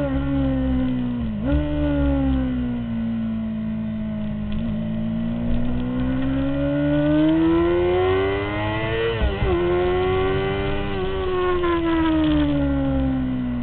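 A 2003 Honda CBR600RR's inline-four engine heard onboard at speed. Its pitch drops and then jumps back up about a second and a half in, as on a downshift. It sags, then climbs steadily from about five seconds, drops sharply at an upshift about nine seconds in, and falls away again near the end.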